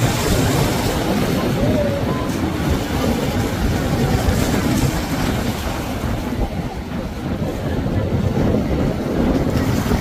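Large Westship motor yacht cruising past through choppy water: a steady low rumble with the rush of its bow wave and wake, and wind buffeting the microphone.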